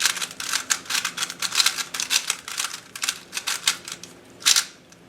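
A GAN 356 i smart 3x3 speedcube is turned quickly to scramble it, its plastic layers clicking and clacking in a fast, uneven patter. One last, louder clack comes about four and a half seconds in.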